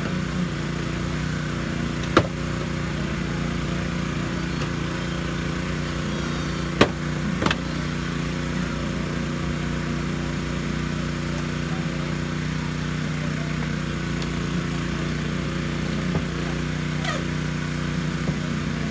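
Small gasoline engine of a hydraulic rescue-tool power unit running steadily. A few sharp cracks and snaps cut through it as the tools force the car's door.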